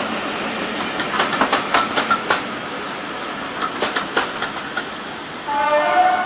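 Wheels of a passing train of railway passenger coaches clicking over rail joints, a rapid uneven clickety-clack that thins out after about two and a half seconds as the last coach draws away.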